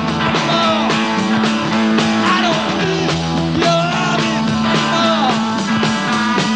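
Live rock band playing: electric guitar with bent notes over bass and a steady drum beat.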